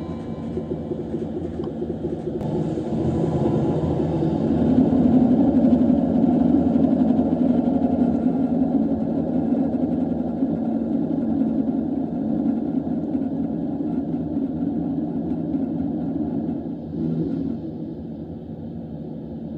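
Recorded KiHa 85 series Cummins diesel engine sound played back from an N-gauge model-railway sound card. The engine rumble grows louder over the first five or so seconds, then runs steadily and drops back near the end.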